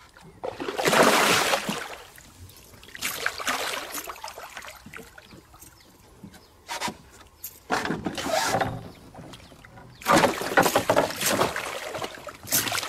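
Water splashing in a series of loud bursts a second or two apart as a hooked giant snakehead thrashes at the surface beside the boat.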